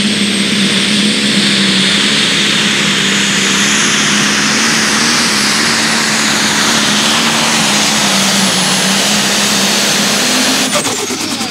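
International light super stock pulling tractor's turbocharged engine running at full throttle under load down the track, with a high whine held steady over the engine note. Near the end the throttle comes off and the whine falls away as the pull ends.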